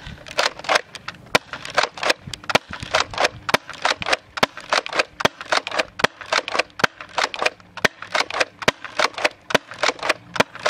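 Nerf Retaliator pump-action blaster with Worker short-dart kit internals being pumped and fired over and over: a fast, steady string of sharp plastic clacks and dart pops, several a second.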